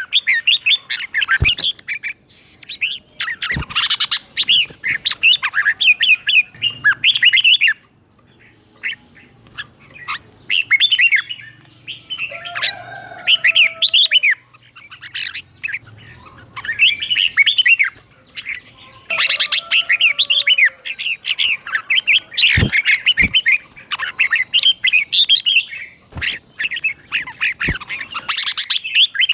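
Red-whiskered bulbul singing in bursts of quick, chirpy warbling phrases separated by short pauses, with a few sharp clicks.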